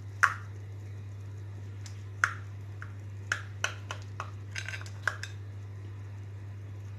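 Metal knife clinking and tapping against a round glass baking dish while cutting into a cheese-topped baked pasta dish: about a dozen sharp clicks at irregular intervals, the loudest about a quarter second in and a quick cluster a little past the middle. A steady low hum runs underneath.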